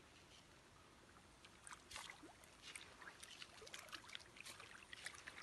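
Faint, quick small splashes and slurps of many koi and other pond fish crowding at the water's surface to take feed, starting about one and a half seconds in and coming thick and irregular.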